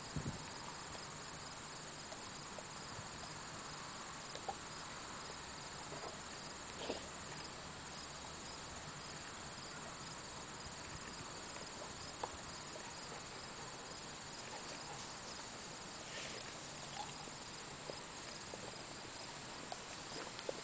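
Steady high insect chorus with a faint pulsing trill, with a few faint scattered clicks and crunches from dogs chewing green peppers and tomatoes in the grass.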